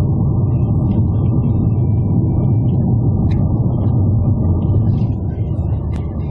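Car driving at road speed, heard from inside the cabin: a steady low rumble of road and engine noise that eases slightly near the end.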